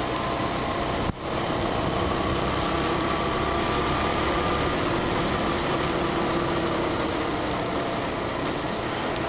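Motorcycle riding on a wet road: a steady engine drone under wind and tyre-spray noise. The sound cuts out for an instant about a second in.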